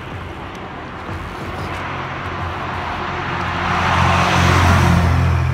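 A road vehicle driving past close by: engine and tyre noise grow steadily louder to a peak about four to five seconds in, then start to fade.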